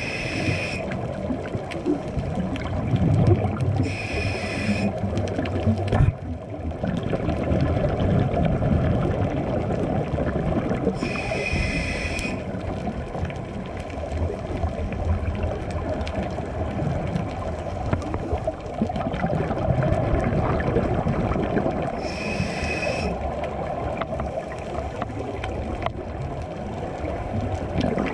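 Muffled underwater rumble of water, heard through an action camera's housing during a scuba dive. Four times a short hiss cuts in: a diver breathing in through a scuba regulator, with the low rumble of exhaled bubbles in between.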